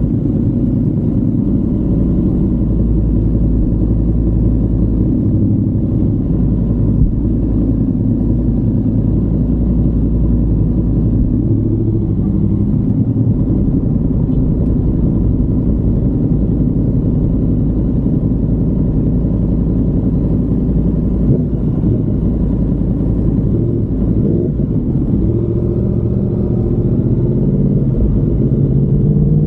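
Yamaha MT-10's crossplane inline-four running through an SC Project carbon-titanium exhaust at low, steady revs, its pitch rising over the last few seconds as it accelerates.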